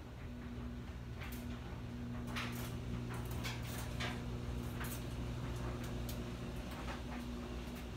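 Footsteps and light clicking taps on a tile floor, irregular and short, over a steady low hum.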